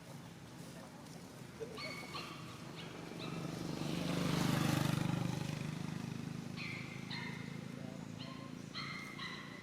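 A vehicle passes by: a low rumble swells to its loudest about halfway through and then fades. Short, high animal calls sound again and again over it, singly and in quick pairs.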